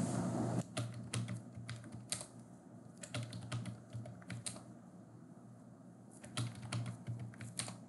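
Computer keyboard typing in three short runs of keystrokes, a password being entered at each of three login prompts.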